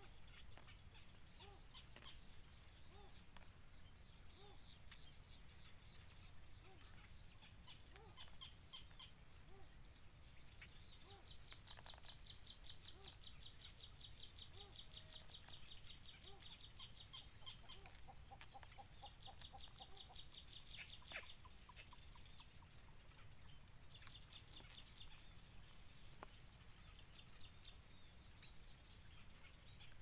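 Marsh ambience: a steady high-pitched insect drone, with rapid chirping trills over it now and then, the longest lasting about five seconds near the middle.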